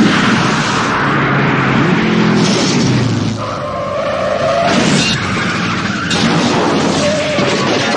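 Car-chase sound effects: car engines revving hard and tyres screeching and skidding on the road.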